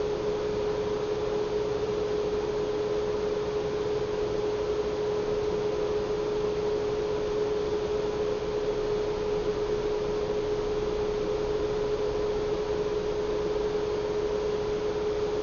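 A steady hum held at one pitch throughout, over a light hiss.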